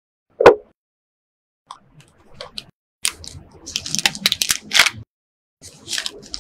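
Unboxing handling of a smartphone's cardboard box: one loud thump from the box lid about half a second in, then crinkling and rustling of the plastic wrap as the wrapped phone is lifted from its paper tray and handled.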